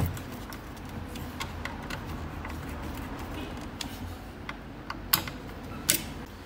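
Scattered light clicks and taps of hand tools and metal parts, with two sharper clicks a little after five seconds and near six seconds in, as the blanked-off EGR pipe is fitted onto the intake manifold.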